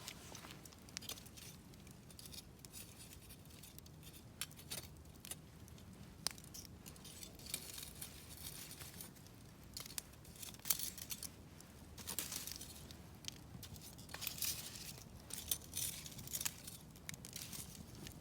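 Wood campfire crackling, with irregular sharp pops and snaps that come thicker in the second half.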